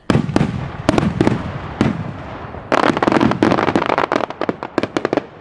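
Aerial fireworks bursting: a few separate bangs in the first two seconds, then a dense run of rapid crackling pops that thins out near the end.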